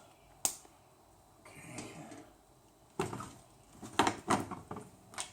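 Sharp clicks and knocks of parts and hardware being handled during work under a car: a single click about half a second in, then a cluster of knocks in the last two seconds.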